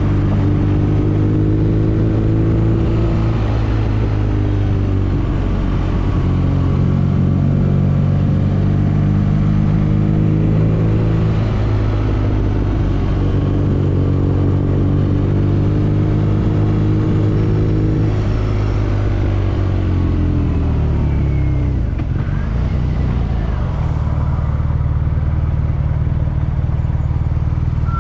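BMW R nineT's air/oil-cooled boxer twin running under way, its pitch rising and falling through the gears. The note falls about twenty seconds in and holds lower and steady for the last few seconds as the bike slows.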